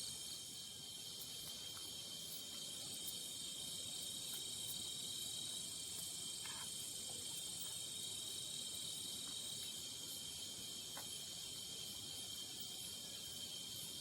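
Night-time insect chorus in forest: several steady high-pitched trills layered over one another, with a few faint ticks.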